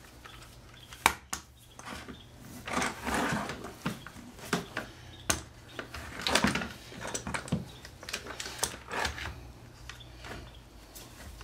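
Bar clamps being fitted and tightened onto a glued-up pine block: an irregular run of clicks, knocks and short scrapes of the clamp bars and jaws against the wood, with one sharp click about a second in.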